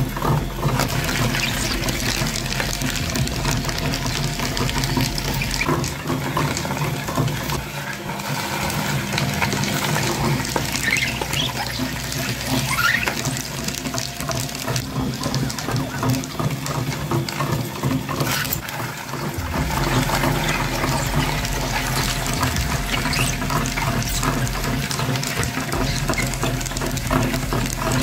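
Meat grinder running with a steady hum while its auger crunches and crackles through brittle pieces, grinding them to crumbs.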